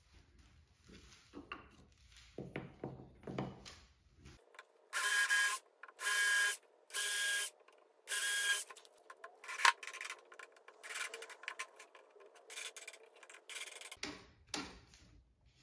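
Cordless drill driving screws into plywood in four short runs of the motor, each a whine lasting under a second. Light knocks and clicks of wooden pieces and the tool being handled come before and after.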